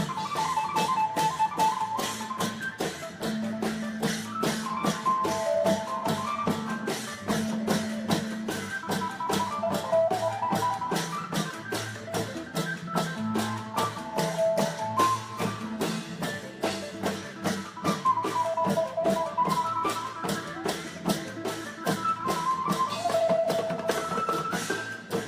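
Isan klong yao long-drum ensemble playing: drums and cymbals keep a fast steady beat under a running melody line.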